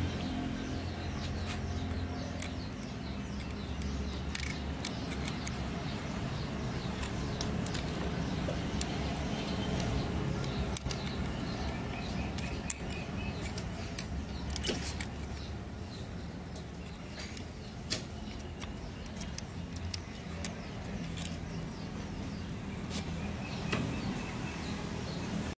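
Bajaj Torito two-stroke engine running with a steady low hum and a metallic jangling rattle of irregular clicks over it: the fault is put down to the fixed primary gear train (tren fijo), whose damper springs are broken and whose rivets need replacing.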